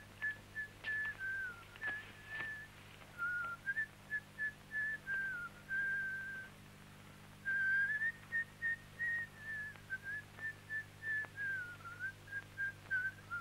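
A young man whistling a tune: a clear, high melody of short notes and a few held ones, with a short pause about halfway through.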